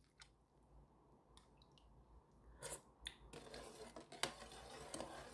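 Near silence at first, then faint swishing of liquid and a few light clicks as a metal ladle stirs the radish water kimchi brine in a stainless steel bowl.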